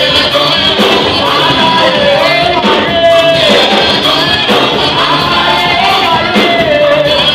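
Live gospel praise music: a lead singer with backing singers over a band with keyboard and drums, a continuous melody over a steady beat.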